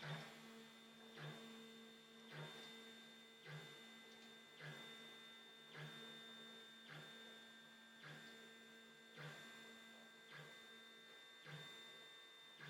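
Faint electric whine and hum of a 3D printer's Z-axis stepper motors driving the bed axis down, with a soft pulse about once a second as each move starts over.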